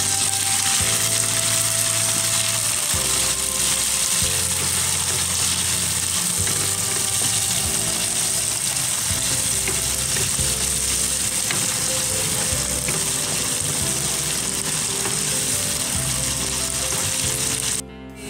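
Hot oil sizzling steadily in a wok as peraju nut kernels fry, stirred with a wooden spatula, with background music underneath. The sizzle breaks off briefly near the end.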